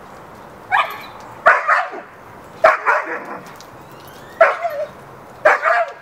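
Dog barking: short single barks about a second apart, with a quick run of two or three barks near the end.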